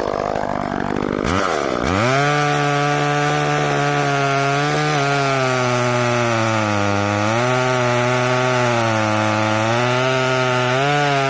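Echo CS-305 30cc two-stroke chainsaw revving up to full throttle about a second and a half in, then held wide open while cutting into a tree trunk. The pitch dips and recovers a few times as the chain loads in the wood, and the engine drops off near the end.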